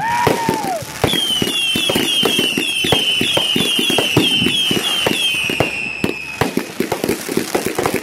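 Fireworks going off in a quick run of pops and crackles. A short falling whistle comes at the start, then a long high whistling firework warbles in quick repeated downward chirps for about five seconds before it stops.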